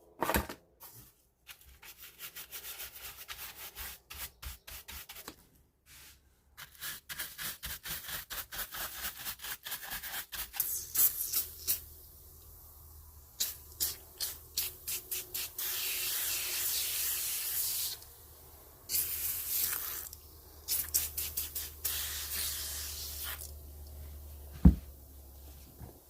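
Computer keyboard being cleaned by hand: runs of quick rubbing or scrubbing strokes, several a second, then longer stretches of steady hissing rubbing. A single sharp knock near the end is the loudest sound.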